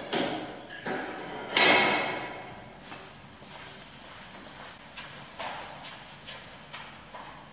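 Handling of a metal cleaning cart: scraping knocks and one loud knock with a short metallic ring about a second and a half in. Then fainter footsteps on a hard floor, moving away.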